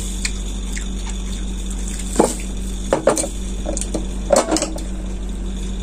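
A glass jar with a plastic lid being handled, opened and set down among dishes on a table: three short knocks and clinks about two, three and four and a half seconds in, over a steady low hum.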